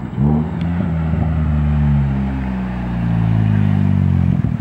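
Hyundai Genesis Coupe 2.0T's turbocharged four-cylinder, fitted with a Garrett GTX3076 turbo and an Exceladyne cat-back exhaust, running loud as the car drives past close by. A deep exhaust note holds at much the same pitch, then cuts off suddenly near the end.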